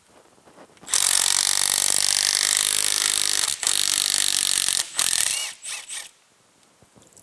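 Milwaukee Fuel cordless power tool spinning out the water pump bolts: one long run of about two and a half seconds, a short pause, a second run of about a second, then three quick blips.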